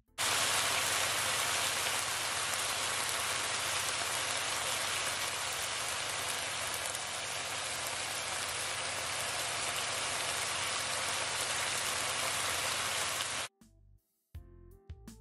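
Sliced mushrooms and chopped vegetables sautéing in hot oil in a non-stick pan over medium-high heat: a steady, loud sizzle that cuts off suddenly near the end.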